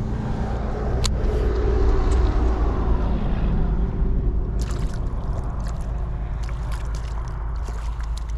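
Wind rumbling on the microphone over choppy lake water sloshing, with a sharp click about a second in and a few short ticks around the middle.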